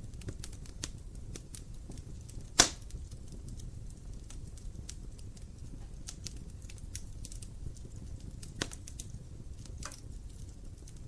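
Wood fire crackling in a fireplace: scattered sharp crackles over a low steady rumble of flames, with one loud pop a couple of seconds in and a smaller pop later on.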